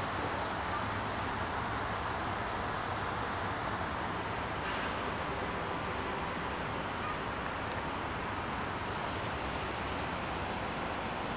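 Steady outdoor street background noise, like distant traffic, with a few faint light ticks over it.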